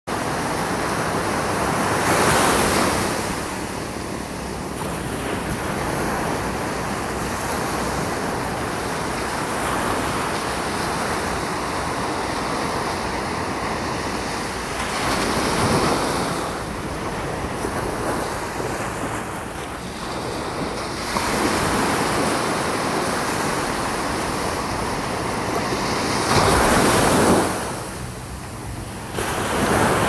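Ocean surf breaking and washing up a sandy beach: a steady rush of water that swells into louder crashes four times as waves break.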